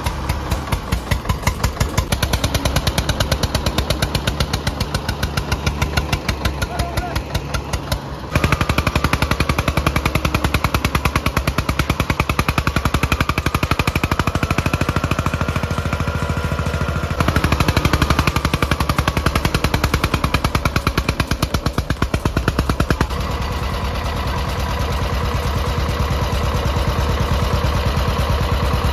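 Vintage Eicher tractor's diesel engine chugging hard under load with a rapid, even knock, mixed with a second tractor's engine. The engines get louder about eight seconds in and again around seventeen seconds, then ease back a little a few seconds later.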